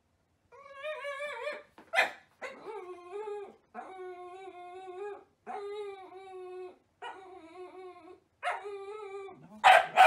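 Dachshund whining and howling while begging for food, in about six long drawn-out pitched cries with short gaps between them, a short sharp yelp about two seconds in, and two loud barks near the end.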